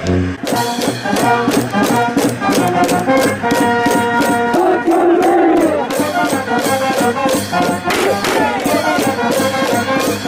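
A high school baseball cheering section's brass band playing a cheer song over a steady drum beat, with the crowd in the stands.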